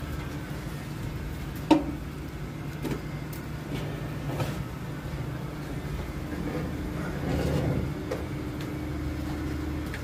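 Steady low hum of the cargo ship's machinery, with one sharp knock a little under two seconds in and a few lighter clicks.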